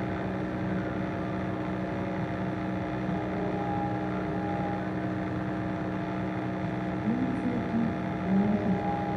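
Steady electrical hum made of several constant tones, with a short double beep repeating about every five seconds. From about seven seconds in a low, wavering voice-like sound rises over it.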